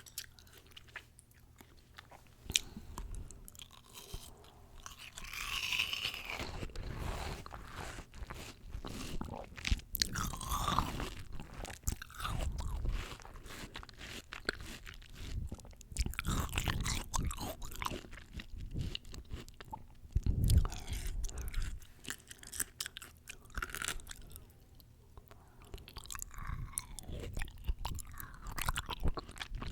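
Close-miked chewing and biting of fresh fruit: juicy crunches and wet mouth sounds coming in uneven bouts, with a short quieter pause about three-quarters of the way through.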